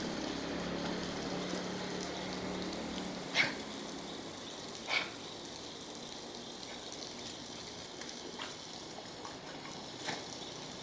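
Garden hose spraying water that splashes on wet pavement, louder for the first three seconds. A few short sharp sounds stand out, about three and a half and five seconds in and again near the end.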